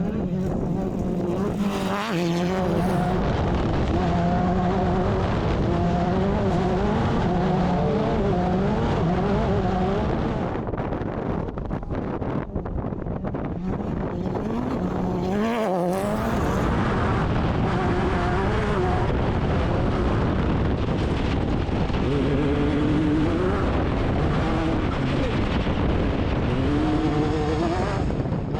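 Off-road desert race car's engine running hard, its pitch rising and falling again and again with throttle and gear changes, over heavy road and wind noise. The sound breaks off abruptly about two seconds in and again about sixteen seconds in, then picks up again.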